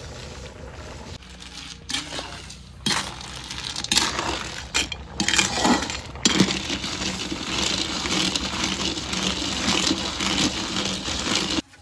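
Snails in their shells clinking and scraping against an iron wok as they are stirred with a metal slotted spoon, over a steady sizzling hiss. The sound stops suddenly near the end.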